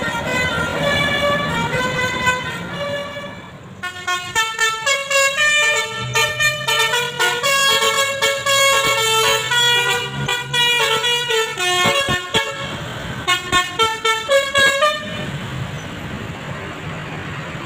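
A bus's telolet basuri multi-trumpet air horns playing musical melodies, first a slower run of stepped notes, then from about four seconds in a faster, busier tune. Short stuttered toots follow, and the horns stop a couple of seconds before the end, leaving engine and traffic noise.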